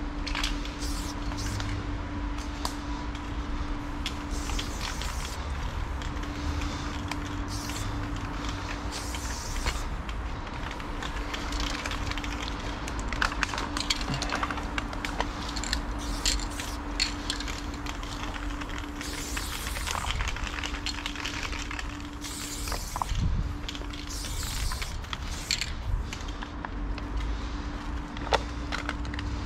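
Loop Colors aerosol spray paint can spraying in repeated short hissing bursts of about half a second to a second, with sharp clicks and rattles of the can between the bursts.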